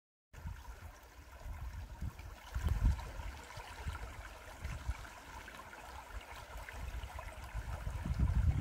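Shallow, rocky creek rippling and gurgling steadily over stones and around a boulder. The sound begins abruptly. Uneven low rumbling gusts lie under it, loudest about two and a half seconds in and near the end.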